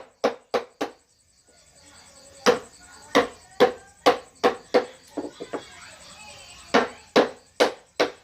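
Wood carving: a chisel struck with a mallet, a series of sharp, ringing knocks about two or three a second, with a pause about a second in and a few lighter taps midway.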